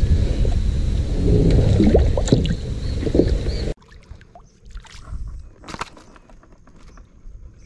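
Wind rumbling on the microphone and water sounds around a fishing kayak. The rumble cuts off abruptly about halfway through, and the rest is quieter, with small scattered clicks and knocks.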